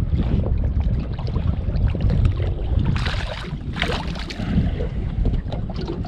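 Wind buffeting the microphone, with scattered sharp knocks and two short splashy bursts about three and four seconds in, as a small flathead is swung out of the water and onto the boat's deck.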